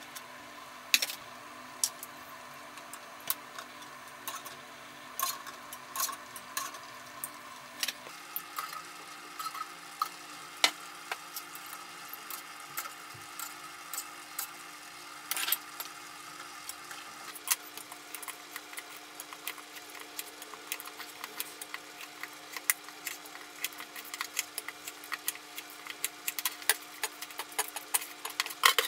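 Kitchen work: metal utensils, pots and a knife on a cutting board knocking and clinking irregularly over a steady hum.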